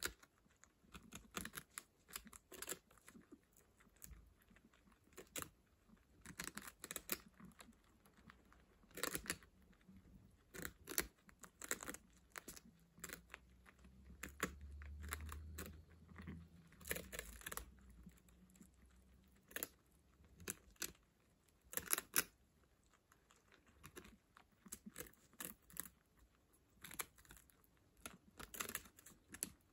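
Guinea pigs chewing and nibbling a shared snack: many small crisp crunches and clicks in irregular quick runs, with light rustling of bedding as they shift about.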